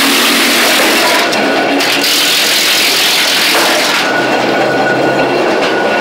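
Chain-driven wood chipper running loud and steady while chipping branches into wood chips. It makes a dense, unbroken mechanical noise.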